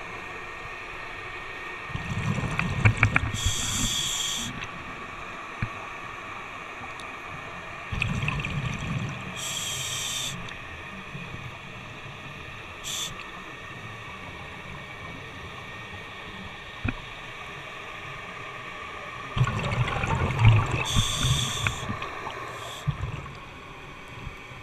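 Scuba diver breathing through a regulator underwater: three breaths, each a short hiss of inhaled air and a low bubbling gush of exhaled air, several seconds apart.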